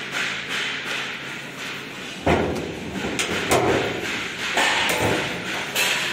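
A few thuds and knocks from a steel lab-table cabinet being handled, the loudest a little over two seconds in, the rest spread through the next few seconds.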